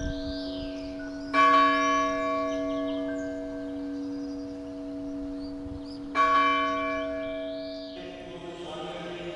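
Orthodox monastery church bell struck twice, about five seconds apart, each stroke ringing on and slowly dying away. The ringing breaks off near the end.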